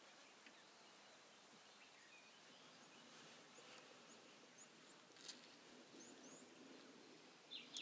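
Near silence: faint outdoor ambience with a few brief, high bird chirps scattered through it.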